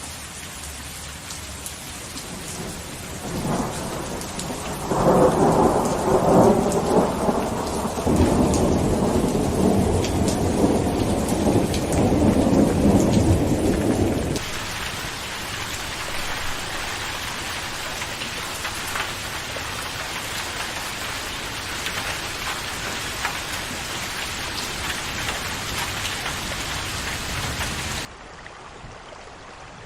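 Steady rainfall with a long rumble of thunder that starts about three seconds in, swells, and cuts off abruptly about ten seconds later, leaving the rain alone. Near the end the rain suddenly drops quieter and duller.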